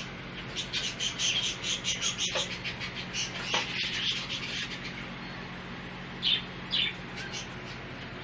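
Small birds chirping: a fast run of high chirps over the first few seconds, then two louder single calls about six seconds in, over a steady low hum.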